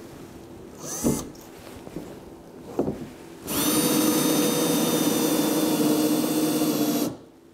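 Cordless drill running: two short spins about one and three seconds in, then a steady run of about three and a half seconds that stops abruptly.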